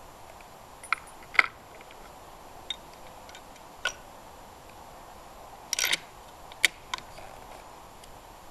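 Scattered sharp mechanical clicks and clacks, about seven of them, with a short quick rattle about six seconds in, typical of a Savage Model 10 bolt-action rifle's bolt being worked and a fresh round chambered between shots. No shot is fired.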